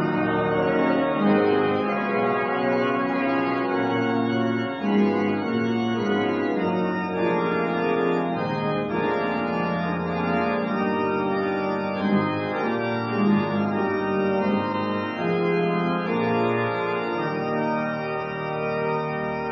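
A 1956 church organ playing full chords, each held and then changing to the next, with no break.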